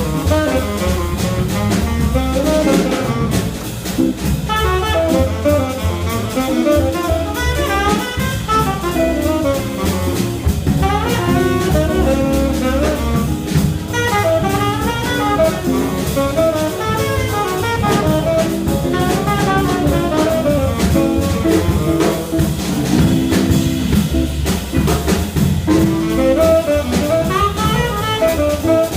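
Jazz quintet playing: a saxophone plays quick runs of notes over drum kit, with a steady low end.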